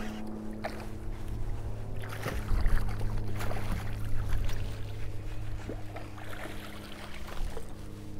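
A boat motor humming steadily, with scattered knocks and splashing as a hooked redfish is fought to the side of the boat; louder for a moment about two and a half seconds in.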